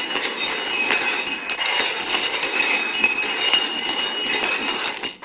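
Cups being slid and shuffled around on a hard surface: a steady scraping with light clinking and ringing.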